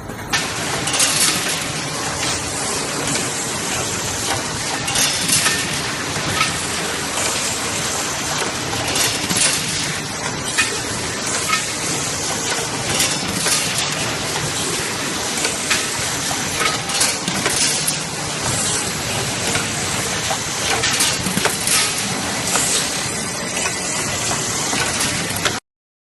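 CNC chipless tube-cutting machine running: a steady mechanical noise with frequent sharp metallic clinks throughout. The sound cuts off abruptly near the end.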